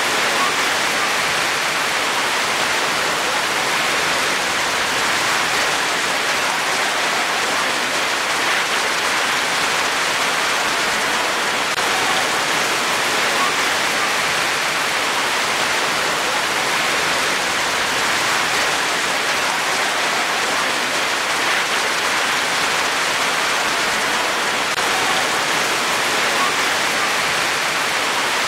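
Steady rain falling, an even, unbroken hiss with no thunder or other sounds breaking through.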